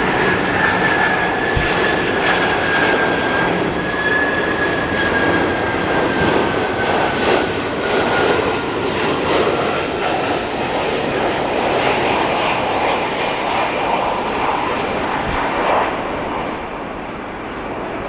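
Jet airliner passing close on its landing approach: a loud, steady engine rush with a high whine that slowly falls in pitch as it goes by.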